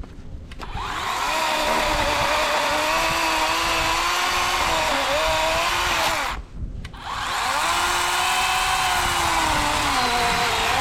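Worx WG384.9 cordless electric chainsaw with an 18-inch bar cutting into a fallen pine stem: a steady electric whine that dips in pitch as the chain bites, cut off briefly past the middle, then started again.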